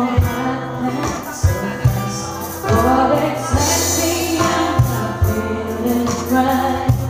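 Live band performing a slow song: a woman sings the lead into a microphone over bass and regular drum hits.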